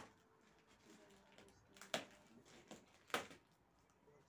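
Three short, sharp clicks or knocks: one at the start, one about two seconds in and one about three seconds in, with near quiet between them.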